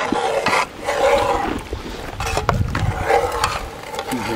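People's voices making drawn-out vocal sounds rather than words, in a few separate stretches.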